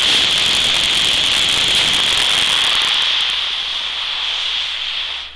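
Two Estes C6-5 model rocket motors joined end to end as one segmented solid-propellant motor, burning with a loud, steady hiss for about five seconds. The hiss eases slightly after about three seconds, then cuts off. During this burn the hot gases breach the masking-taped joint between the segments.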